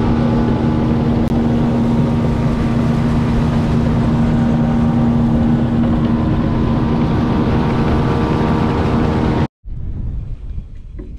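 Small skiff's outboard motor running at a steady cruising speed, with wind and water noise as the boat crosses a shallow flat. It cuts off abruptly about nine and a half seconds in, leaving fainter wind noise and a few light knocks.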